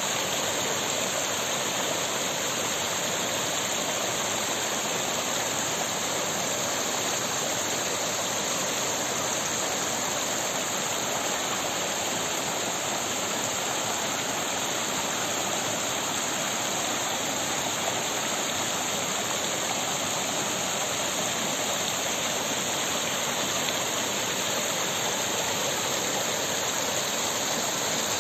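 Small mountain stream running steadily over rocks and through little cascades: an even, unbroken rush of water.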